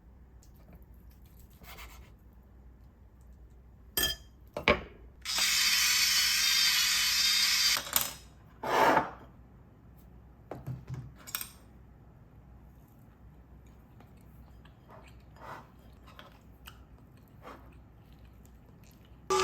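Kitchen handling sounds: scattered clinks and knocks of dishes and utensils, with a loud hissing rush lasting about two and a half seconds near the middle and a shorter one just after.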